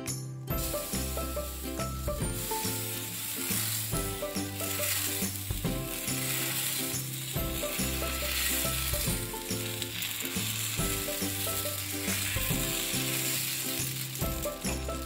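Moong dal dosa batter sizzling as it is poured onto a hot oiled pan and spread in circles with a ladle; the hiss starts about half a second in and stays steady. Background music with held bass notes plays under it.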